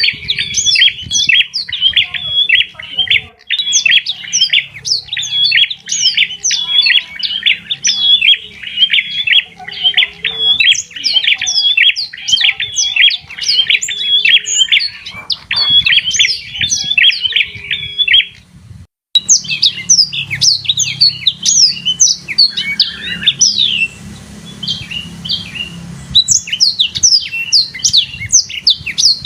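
Birds chirping in quick, dense runs of short high-pitched notes. The chirping stops briefly about two-thirds of the way through, then starts again.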